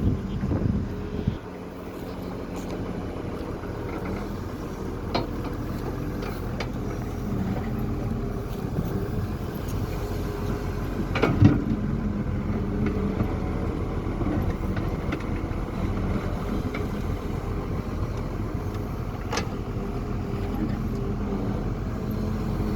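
Doosan DX140 excavator's diesel engine running steadily at work, with a few sharp knocks over it, the loudest about halfway through.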